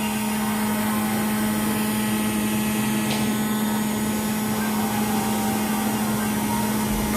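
Laptop making the abnormal noise it gives on power-up: a steady, loud droning hum with a hiss over it. This is the strange sound that alarmed its owner.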